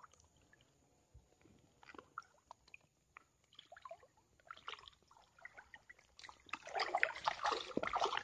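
Faint trickling and dripping of swamp water around a person wading, with small scattered ticks. About six seconds in, the water sloshes and splashes louder for a couple of seconds as he pushes through it.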